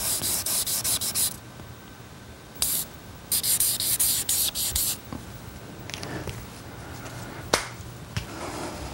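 Red marker rubbed quickly back and forth across a clear sheet, underlining words in runs of rapid strokes: one run of about a second, a short stroke, then a longer run of about a second and a half. A single sharp click near the end.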